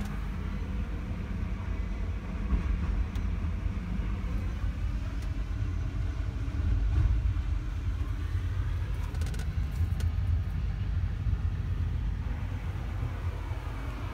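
CAT 772G off-highway dump truck's diesel engine idling, heard from inside the cab as a steady low rumble.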